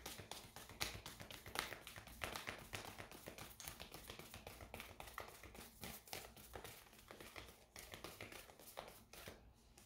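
A deck of tarot cards being shuffled by hand: a quick, faint run of soft clicks and taps that dies away near the end.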